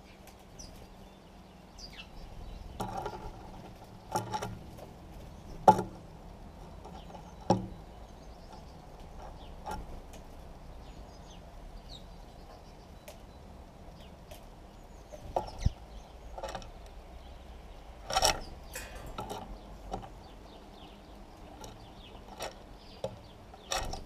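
Scattered sharp taps and knocks, the loudest about six seconds in, over faint, brief sparrow chirps and outdoor background.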